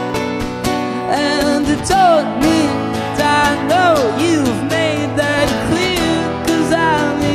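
Background music: acoustic guitar strummed in a steady rhythm, with a voice coming in about a second in to sing a gliding melody over it.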